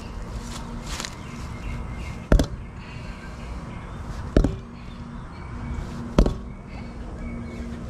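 Three sharp knocks about two seconds apart: a bowie knife's point being driven into the tread of an old steel-belted tire and not penetrating.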